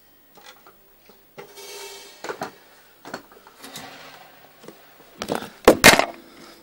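Movement and camera handling noise: scattered light knocks and rustling, then a cluster of loud knocks and bumps near the end as the camera is grabbed.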